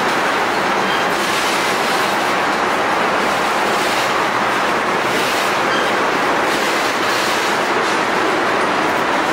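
Train passing close by: the steady, loud rolling noise of its cars on the track, with a few faint clicks of the wheels.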